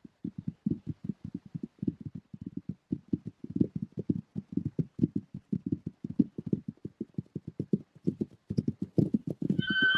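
Feral horse hooves galloping, a rapid uneven run of dull hoofbeats. Just at the end a horse's high-pitched squeal begins.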